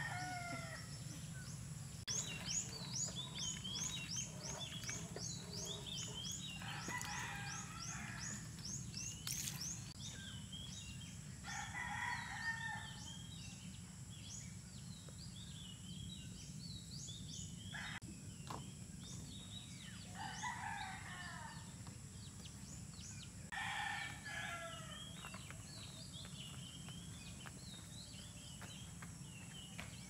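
Roosters crowing about five times at irregular intervals, each crow lasting about a second, with small birds chirping in quick high series in between.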